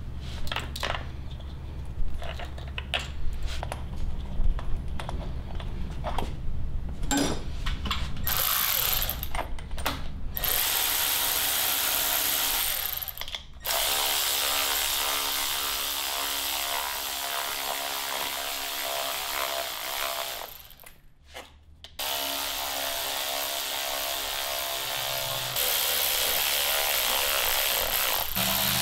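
Knocks and clicks of parts being handled and fitted for about the first ten seconds. Then a cordless electric ratchet runs steadily in long stretches, with short breaks about 13 and 21 seconds in, driving bolts to fasten a 3D-printed stepper motor mount.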